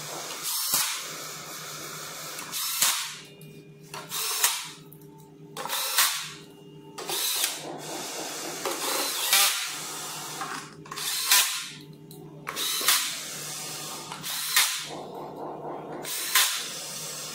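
Cordless drill-driver turning screws into a scooter's metal deck plate in short runs, about ten of them, spaced a second or two apart.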